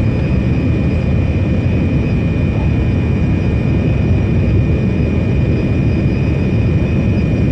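Steady cabin noise inside an Air India Boeing 787 Dreamliner in flight on descent: an even rumble of engines and airflow, with a faint steady high whine above it.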